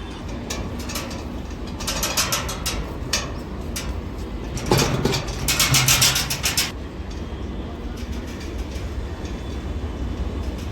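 Train wheels on the rails at a station, clacking rhythmically over rail joints in two louder spells over a steady low rumble.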